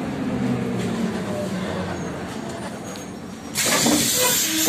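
Trolleybus drive running with a low hum that eases slightly downward as it comes to a stop. About three and a half seconds in comes a loud, sharp hiss of compressed air from the trolleybus's pneumatic system, lasting about a second.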